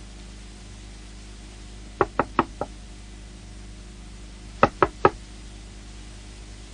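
Knocking on a door: four quick knocks, then three more about two and a half seconds later, over a faint steady hum.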